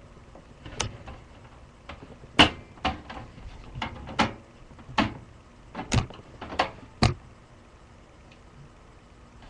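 Irregular sharp clicks and knocks of a screwdriver and parts being worked against a desktop computer's case while dismantling it, about nine of them over seven seconds.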